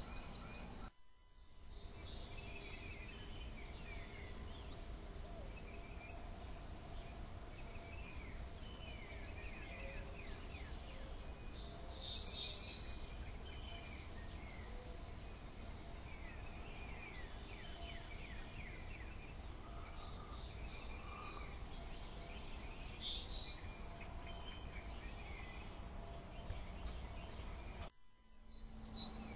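Morning birdsong: many short falling chirps and calls from several songbirds over a low, steady outdoor rumble, with a few louder chirp bursts around the middle and again near the end.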